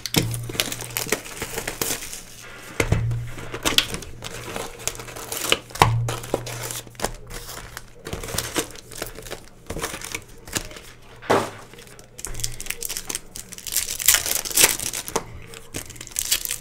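Trading-card pack wrappers being torn open and crinkled, with cards shuffled and handled: a busy run of crackles and rustles, broken by a few dull knocks.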